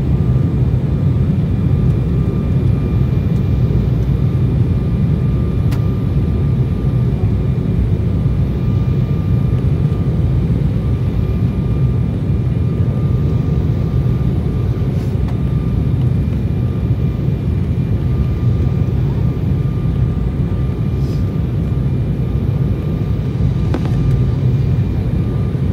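Steady low roar inside the cabin of an Embraer E190 airliner descending to land: turbofan engine and airflow noise, with a faint high steady whine over it.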